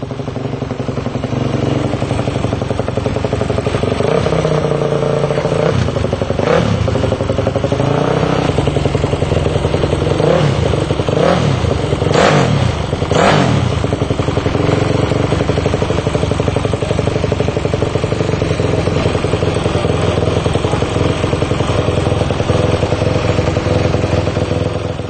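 Single-cylinder Supermono race bike engine running in the paddock, blipped up and back down about five times in quick succession partway through, then left running steadily. It is being run after the bike was stripped and modified, to check that it runs.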